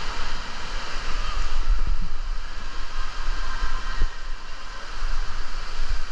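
Rushing, splashing water in a steady wash, with low buffeting thumps on the microphone every so often.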